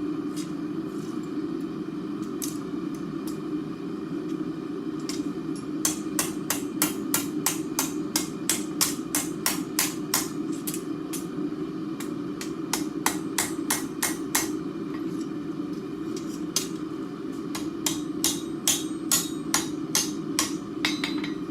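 Blacksmith's hammer striking steel on an anvil in two runs of quick blows, about three a second, starting about six seconds in with a short pause partway, over a steady low roar from the forge.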